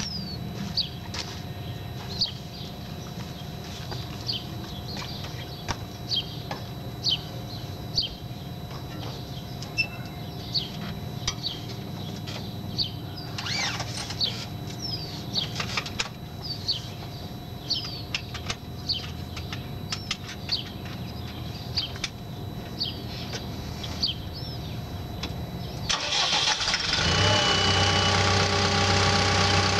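A CAT D5K2 bulldozer's diesel engine cranks and catches near the end, then settles into a steady idle. Before that, birds chirp repeatedly over a low rumble, with a few clicks.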